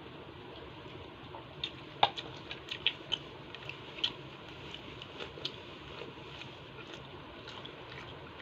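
Scattered small clicks and taps over a steady low hiss, the sharpest about two seconds in with a cluster just after: handling food and tableware while eating.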